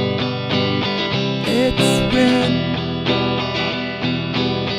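Instrumental passage of a song: guitar chords strummed in a steady rhythm, with one note that bends in pitch and a short burst of high hiss about a second and a half in.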